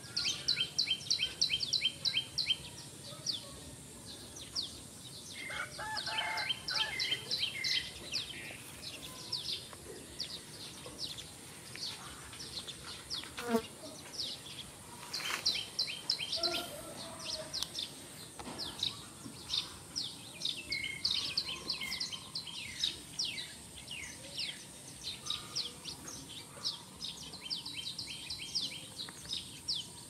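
Outdoor birds chirping in rapid trains of short, high calls that repeat again and again, over a steady high insect drone.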